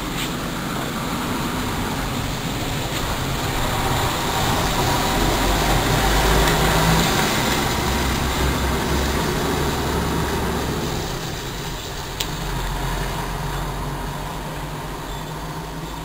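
Steady background noise with a deep low hum that slowly swells for several seconds and then eases off, with one sharp click about twelve seconds in.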